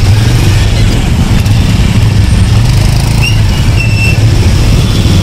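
Motorcycle engine running steadily underneath, close by, in slow, dense city traffic with other vehicles' engines around it; a loud, even low drone.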